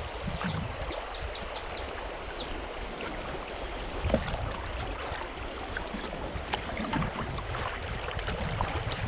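River water rushing and rippling over a shallow, rocky stretch, a steady wash with many small splashes.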